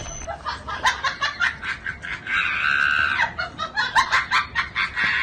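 A small dog in a mesh-window pet carrier backpack making a rapid run of short, sharp yelps, with one longer drawn-out cry about halfway through.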